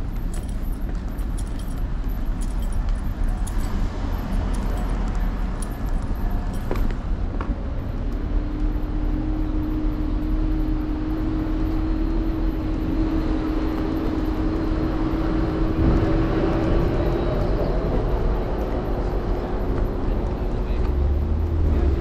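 Road rumble and wind noise from an electric scooter ride, picked up by a camera on the handlebars, with light rattling over the first several seconds. From about eight seconds in, a steady hum joins and holds to the end.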